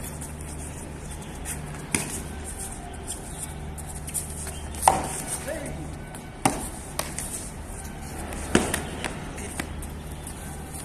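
Synthetic practice swords clacking against each other and a buckler in sparring: a handful of sharp, scattered strikes, the loudest about five, six and a half and eight and a half seconds in, over a steady low background hum.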